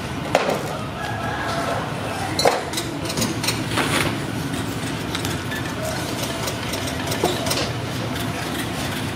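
Steady low mechanical hum in the background, with a few scattered clicks and knocks.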